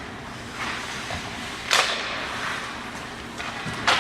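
Ice hockey rink sounds: two short, sharp noises from play on the ice, about two seconds apart, over the steady hubbub of the arena.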